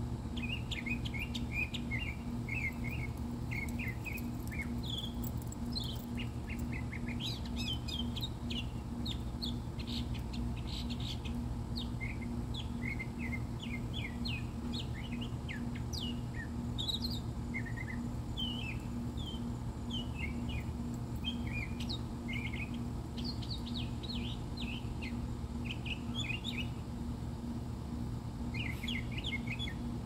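A songbird singing a long, chatty run of quick chirps and short whistled notes, many of them sliding in pitch, with only brief pauses, over a steady low hum.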